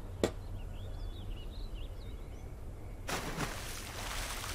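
A single click, then faint high wavering chirps over a low steady hum. About three seconds in, a steady hiss begins.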